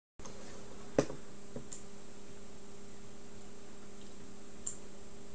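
Room tone with a steady low electrical hum and a faint high whine, broken by a few small clicks, the loudest about a second in.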